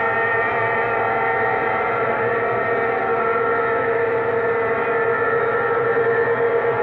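Racing hydroplane boats' engines running at speed on the river, a steady high drone made of several held tones, swelling slightly towards the end.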